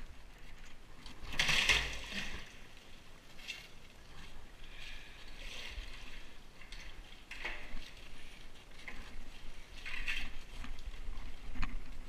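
Water sloshing and splashing as a bucket on a rope is dipped into a concrete water pit and hauled up, with knocks and scrapes of the plastic buckets in between; the biggest splash comes about a second and a half in.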